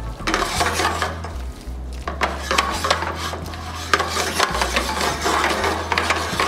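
Metal tongs scraping and clicking against a skillet as bucatini is tossed through a cheese sauce, with the pan shifted on the stove grate.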